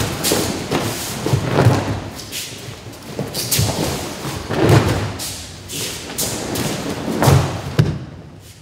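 Aikido breakfalls: heavy thuds of a body landing and rolling on a training mat, several times, between the swishing rustle of cotton gi and hakama and feet sliding on the mat as one throw follows another.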